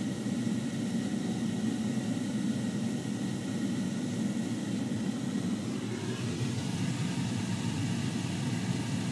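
Steady low engine drone heard from inside a vehicle cab, with no sudden changes.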